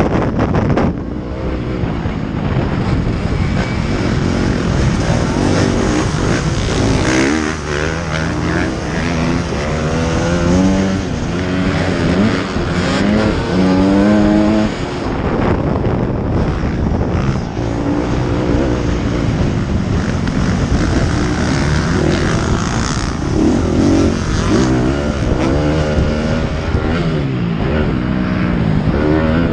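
Motocross bike engine heard from the rider's helmet, running hard on the throttle, its pitch climbing again and again as it revs up through the gears.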